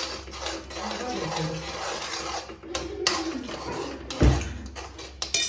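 Metal spoon stirring and scraping thick pasta and white sauce in an aluminium kadhai, with a few sharp clicks and one loud dull thump about four seconds in.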